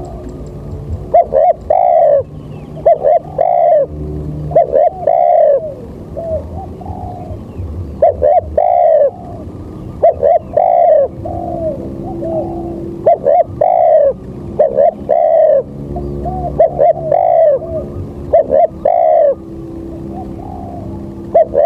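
A bird calling over and over in short phrases of two to four brief notes that rise and fall in pitch.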